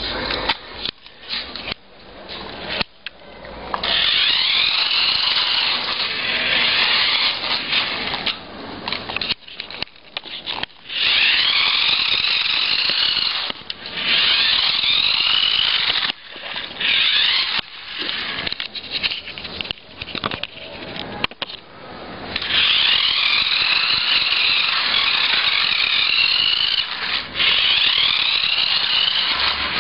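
Small electric motor of a toy Mini Cooper car, a motor taken from a Bigfoot toy pickup, whining high as the car drives in spurts, its pitch rising and falling with speed. There are several short runs with brief stops between them.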